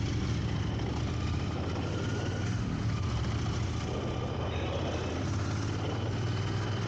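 Royal Enfield motorcycle engine running steadily at low speed, a constant low hum.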